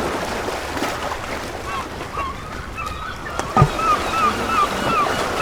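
Waves washing on a beach under a steady wash of surf noise, with seagulls calling: a quick run of short, repeated calls begins about two seconds in. About three and a half seconds in there is one sudden louder sound that slides steeply down in pitch.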